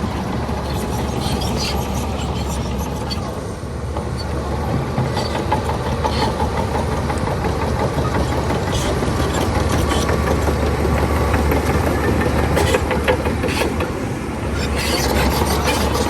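Bulldozer's diesel engine running steadily, with several sharp metallic clanks in the second half.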